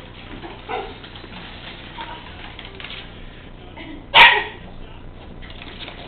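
A dachshund barks once, loud and sharp, about four seconds in, with a fainter short dog sound near the start.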